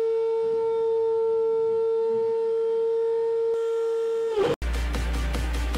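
Shapeoko Pro CNC spindle running at a steady high speed, a steady single-pitched whine with overtones, which cuts off abruptly about four and a half seconds in. Electronic intro music with a steady beat follows.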